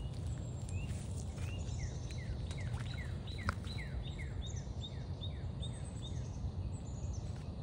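Small birds chirping: a run of quick, high downslurred notes repeated about three times a second, with other thinner calls higher up, over a steady low rumble. A single sharp click comes about halfway through.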